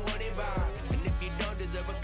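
Background music with a steady bass, a few drum hits and a vocal line.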